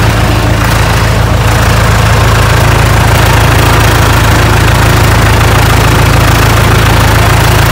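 Off-road 4x4 competition vehicle's engine idling steadily, loud and close, with a constant low hum. Heavy rain hisses behind it.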